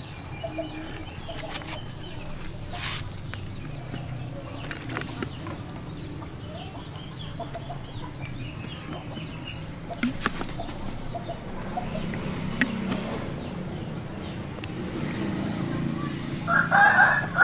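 Domestic chickens clucking in the background, with a louder fowl call near the end. A few light clicks and rustles come from eels being bound onto a green bamboo stalk over a banana leaf.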